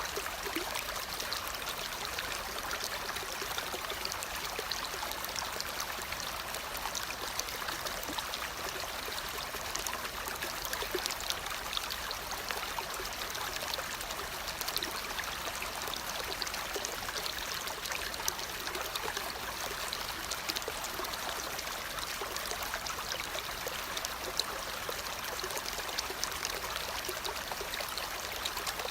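Steady rush of running water, like a stream, with faint scattered ticks in it.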